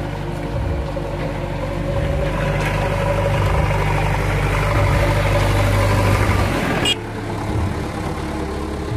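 Diesel engine of a JCB backhoe loader running as it pushes snow with its front bucket, growing louder as it comes close, then cutting off abruptly about seven seconds in.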